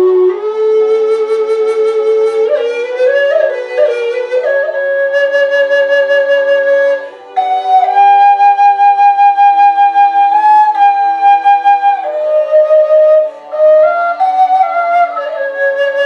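Wooden double-bore drone flute played slowly. It carries a breathy improvised melody of held notes with a few quick ornaments. Midway comes a long high note that pulses with vibrato, and there are short pauses for breath.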